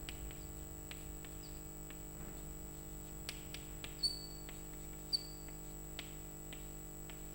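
Chalk tapping and scraping on a blackboard as symbols are written, with two short, high chalk squeaks about four and five seconds in.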